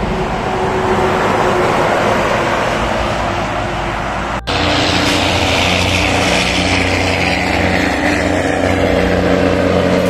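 Heavy diesel trucks passing on a highway: steady tyre and engine noise. After a brief cut about halfway through, a deep engine hum comes in with a tyre whine that slowly falls in pitch as a truck goes by.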